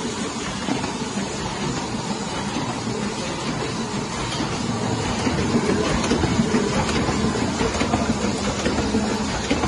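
Heidelberg SORMZ sheet-fed offset printing press running, a steady dense mechanical clatter that gets a little louder about halfway through.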